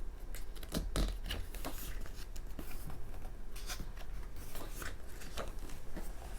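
Pages of an album photobook being handled and turned: a string of short paper rustles and soft taps.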